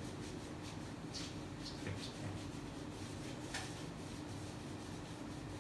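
Faint, scattered rubbing strokes of a whiteboard being wiped clean, over a steady low hum.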